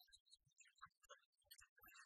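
Near silence, with only faint scattered ticks and specks.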